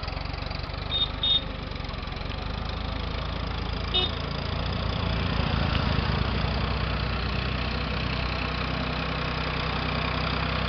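Vehicle engine running steadily, getting louder and fuller about four and a half seconds in.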